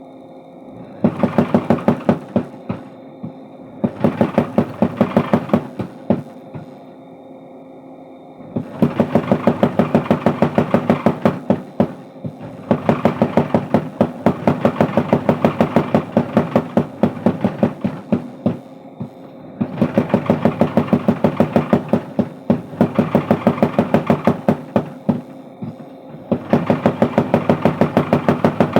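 Mechanical power hammer forging steel for a crowbar: six runs of rapid, evenly spaced blows, each a few seconds long, with the machine's motor humming steadily in the pauses between them.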